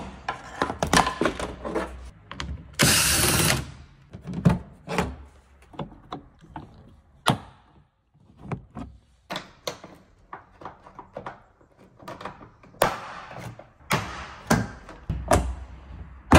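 Plastic interior trim panels being pried off with a trim removal tool: a string of sharp clicks and knocks as the retaining clips pop and the panels shift. About three seconds in there is a loud, harsh noise lasting about a second.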